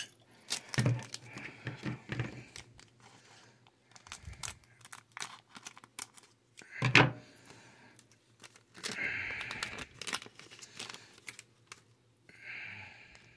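Foil booster pack wrappers crinkling and being cut open with scissors, with scattered clicks and one sharp click about seven seconds in.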